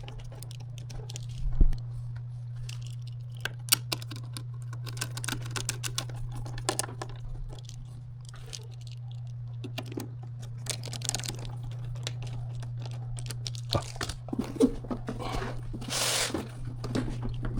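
Screws being driven into the spectrum analyzer's metal case, with scattered sharp clicks and short scraping and handling noises, busier near the end. A steady low hum runs underneath.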